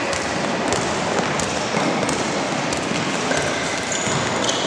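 Basketball being dribbled on an indoor hardwood-style court, the bounces coming about every half second over a steady background noise of the hall. Short high sneaker squeaks near the end.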